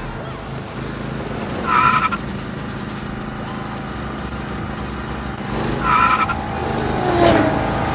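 Riding lawn mower engines running steadily during a race. Two short, loud, high-pitched cries come about four seconds apart, and a sharp sound with a falling tone follows near the end.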